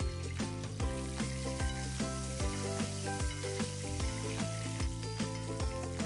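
Background music with a steady beat, over chicken thigh sizzling in hot olive oil in a frying pan as the herb oil and pan juices are spooned over it.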